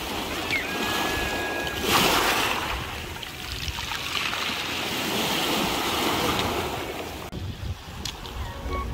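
Small sea waves breaking and washing up over a pebble beach, surging about two seconds in and again a few seconds later, then easing off near the end.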